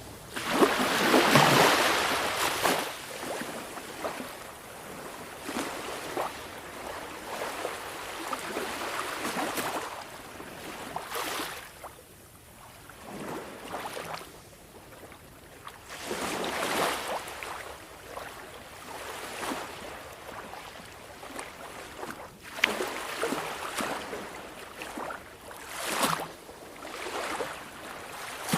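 Small sea waves washing against the shore: irregular swells every few seconds that rise and ease off, the biggest near the start, with a couple of short sharper splashes late on.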